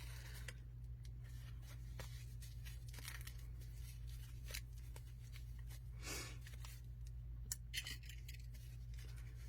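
Faint rustling, crinkling and small clicks of protective wrapping being pulled off a crystal by hand, with a longer rustle about six seconds in. A steady low hum runs underneath.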